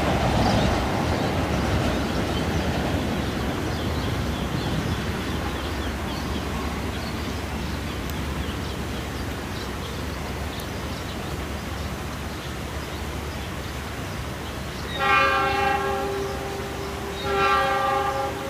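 Wheel-on-rail noise of a passenger train running away over station turnouts, fading slowly. About 15 seconds in, the train's CC206 locomotive sounds its horn in two blasts, a longer one then a shorter one. This is Semboyan 35, the horn warning signal, given for a level crossing ahead.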